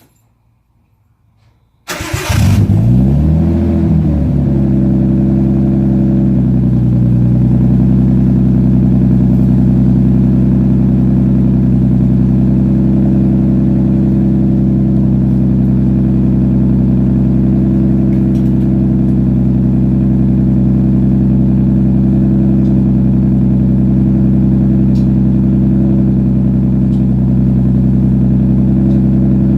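Nissan R32 Skyline's RB straight-six cold-starting about two seconds in, flaring up in revs and then settling into a steady idle. It is breathing through a catless test pipe with a 3-inch downpipe and a cat-back exhaust.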